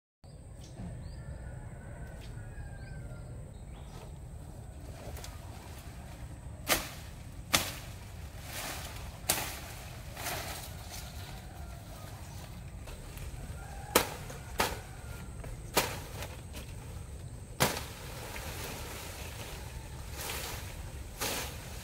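Machete chopping into brush and woody stems: sharp, separate strikes, about nine, one every second or few, starting about a third of the way in.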